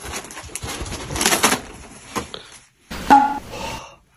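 Bedding and a fleece blanket rustling, with a few sharp scuffs, then a short moan from a man about three seconds in.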